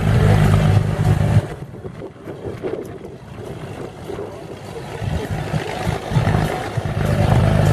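Light aircraft's piston engine running as a floatplane taxis, a steady drone. It falls away sharply about a second and a half in, then swells back up over the last few seconds.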